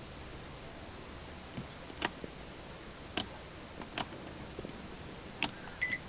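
Buttons on a Daikin simple remote control clicking, four sharp presses about a second apart, then a short high beep near the end as the air conditioner receives the signal.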